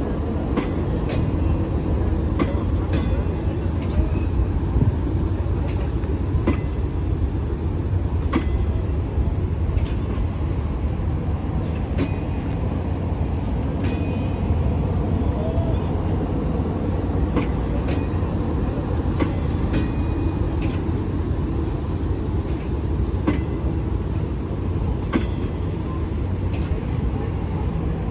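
Train running on the rails with a steady low rumble, broken by sharp clicks every second or two.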